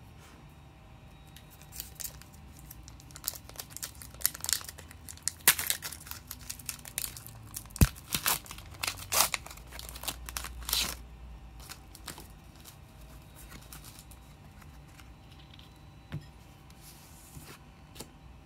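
Foil Pokémon booster pack wrapper crinkling and being torn open, a run of crackling tears over several seconds, then a few faint clicks of handling near the end.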